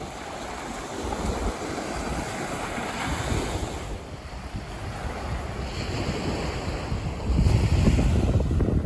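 Sea surf washing on the shore, with wind buffeting the microphone in low rumbling gusts that grow stronger about seven seconds in.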